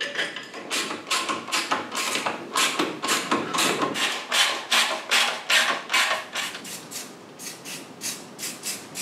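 Socket ratchet worked in quick repeated swings while an exhaust clamp is tightened, a short rasp of clicks about three times a second that grows fainter in the last couple of seconds.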